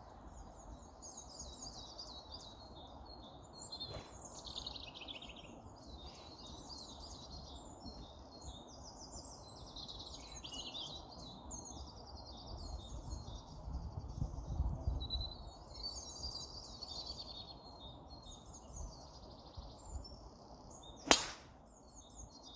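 Birds singing throughout. Near the end, a single sharp crack as a golf driver strikes a teed ball.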